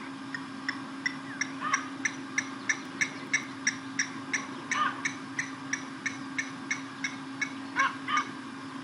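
Blacksmith lapwings giving their metallic, clinking alarm call: a fast, even series of sharp notes about three to four a second, with a few lower, drawn-out cries mixed in. The birds are calling in alarm at lion cubs chasing them.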